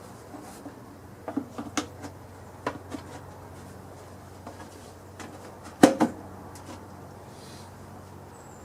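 Tools and parts being handled during mechanical reassembly: a series of light knocks and clinks, then a louder double knock about six seconds in, over a steady low hum.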